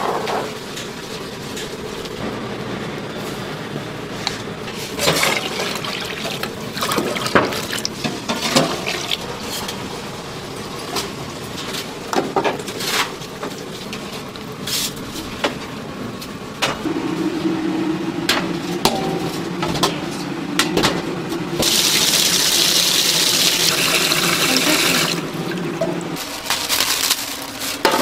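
Snack-shop kitchen sounds: scattered clicks and knocks of utensils and metal trays, a steady hum starting a little past the middle, and a loud rushing hiss for about three seconds near the end.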